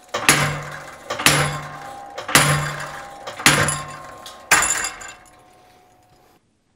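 Five ringing hammer blows, steel on steel, forging a hot bar on an anvil block, about one a second. Each blow rings and fades, and the last dies away near the end.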